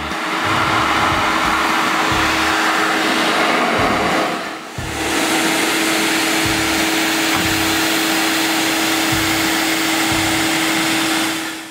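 Konan 1400 W electric pressure washer running, its high-pressure water jet hissing steadily against a car's wheel and bodywork over a steady motor hum. The spray drops out briefly about four and a half seconds in, then resumes.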